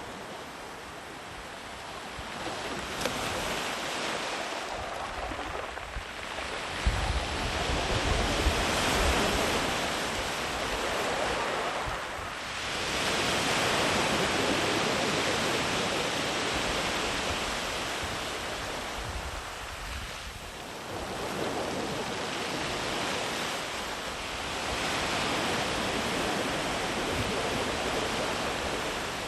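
Sea waves rolling in and washing up the beach, the surf swelling and ebbing in about four long surges. A brief low rumble comes about a quarter of the way in.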